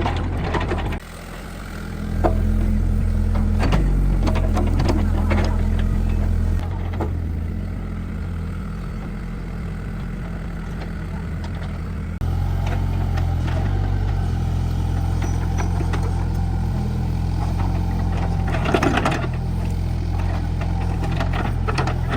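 An engine or motor running steadily, its level stepping up and down several times, with scattered clicks and knocks.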